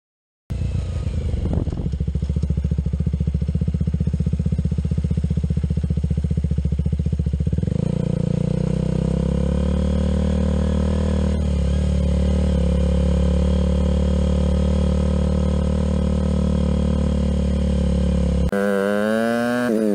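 KTM RC125's single-cylinder four-stroke engine running as the bike is ridden along a dirt track. It starts with a rapid pulsing beat, and about eight seconds in it settles into a smoother, slightly higher steady note. Near the end it cuts off abruptly into music with a singing voice.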